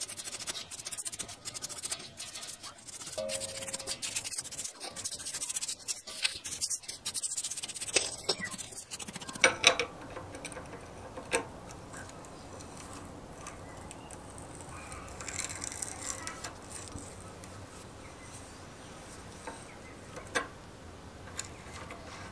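A brush scrubbing a rusty gear and shaft in parts-washer solvent: rapid scratchy strokes for the first several seconds. Then a few sharp metal clinks and quieter handling as a spanner and a nut are worked on the gear.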